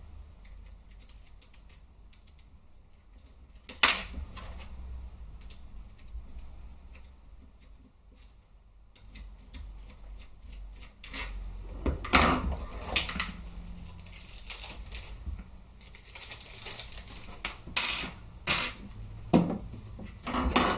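Scattered clicks and metallic clinks of a screwdriver working on the gearbox screw of an airsoft rifle and small metal parts being handled and set down, one sharp knock about 4 seconds in and busier clusters of clinks in the second half.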